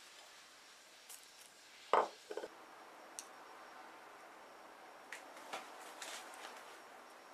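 A sharp knock about two seconds in, with two smaller knocks right after. Then light taps and scrapes of a kitchen knife blade pressing crosshatch lines into soft sugar-coated matcha cookie dough on parchment paper.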